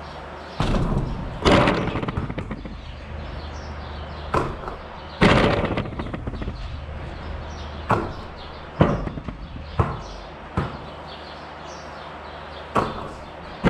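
A series of sharp bangs and knocks, about nine at irregular intervals, over a steady low hum.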